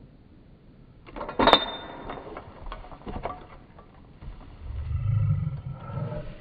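Catch pole clicking and rattling as a gray wolf held at its end pulls and twists against it, with one sharp metallic click about a second and a half in. A low rumble follows near the end.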